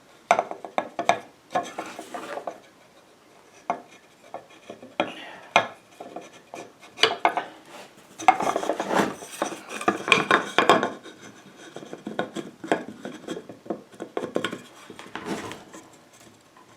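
A wooden panel being test-fitted down over its posts: irregular knocks, clatter and scraping of the parts against each other. There is a quieter stretch a few seconds in, and the clatter is busiest past the middle.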